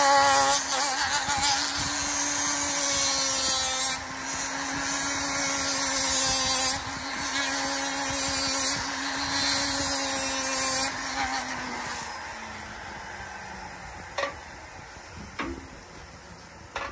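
Foredom flexible-shaft rotary tool with a sandpaper attachment running at a steady speed, hissing as the sandpaper is worked over the wooden knife handle and its metal pins. About 12 seconds in, it spins down with a falling hum. Two sharp clicks follow.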